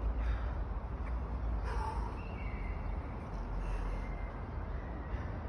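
Outdoor urban ambience: a steady low rumble, with a few faint high chirps in the middle.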